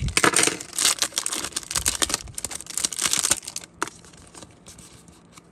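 Foil wrapper of a hockey card pack crinkling and tearing as it is slit open with a box cutter and the cards pulled out, for about three and a half seconds. After that it goes quieter, with a single click near the end.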